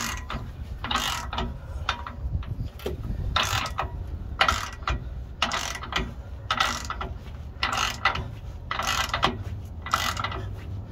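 Hand ratchet wrench turning the threaded rod of a bushing press tool, its pawl clicking in short strokes about once a second as a suspension pivot bushing is drawn in and the rod grows tight.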